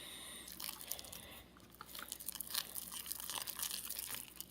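Sticky slime being worked and mixed as borax activator is added, giving an irregular run of small crackles, pops and squelches.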